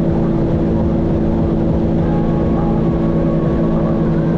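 Sea-Doo GTX 170 personal watercraft's three-cylinder Rotax engine running at a steady cruising speed, under an even rushing noise.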